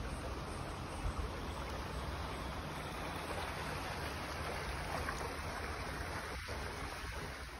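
Shallow stream running over stones: a steady rush of flowing water, fading out at the very end.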